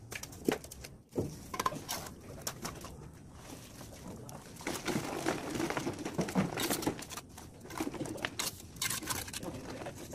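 A dove cooing repeatedly, with scattered sharp knocks and scrapes as bricks are set in mortar.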